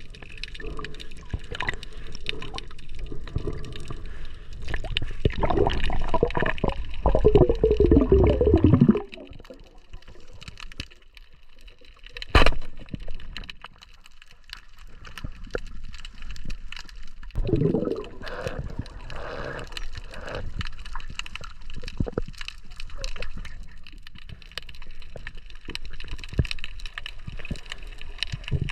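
Water sloshing and gurgling with many small clicks. Muffled, voice-like sounds come from about five to nine seconds in and again near eighteen seconds, and a sharp knock comes about twelve seconds in.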